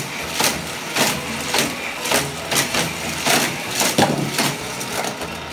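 Battery-powered booster of a Hot Wheels Criss Cross Crash track running with a steady hum. Toy cars are fired through it and around the plastic track, with a sharp clack about twice a second.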